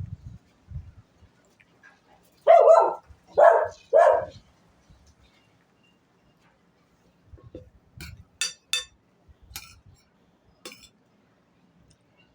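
Dog barking three times in quick succession, alerting to someone moving the gate. A few faint sharp clicks follow later.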